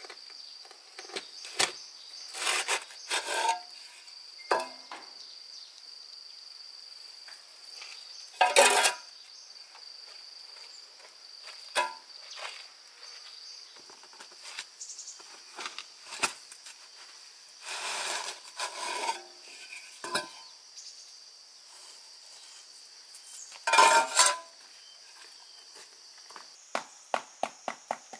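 Insects calling with one steady high-pitched tone throughout, under scattered knocks, clatters and short scrapes of objects being handled, the loudest about 9 and 24 seconds in, and a quick run of light ticks near the end.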